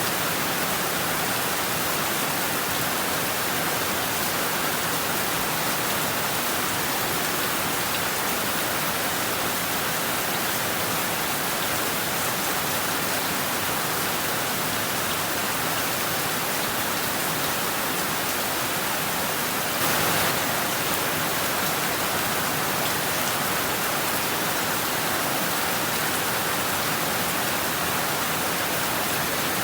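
Heavy rain falling steadily, a dense even hiss, with a brief louder swell about twenty seconds in.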